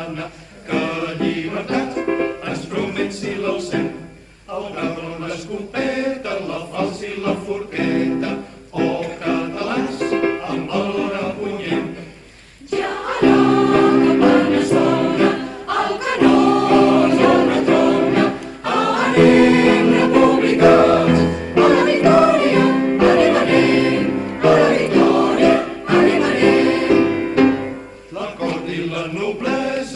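Choir singing a Catalan republican anthem, growing louder about thirteen seconds in.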